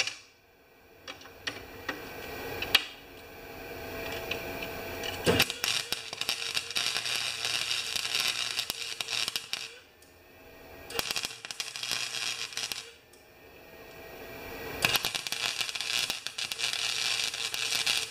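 Wire-feed (MIG) welder arc crackling and sputtering while welding a snowblower's transmission housing, in three runs of several seconds each with short pauses between. A few sharp clicks come before the first run.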